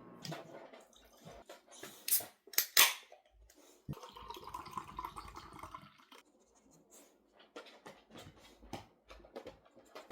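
Kitchen handling sounds: scattered clicks and clatter of dishes and utensils, two loud short noisy bursts about two and three seconds in, and a steadier hissing noise for about two seconds after that.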